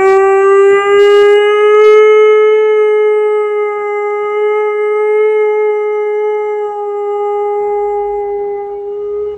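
Alaskan Malamute giving one long howl, held at a steady pitch and slowly getting quieter before it stops near the end.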